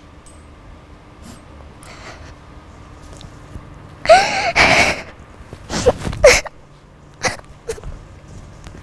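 A boy's acted crying: short sniffs, then loud sobbing about four seconds in and again around six seconds.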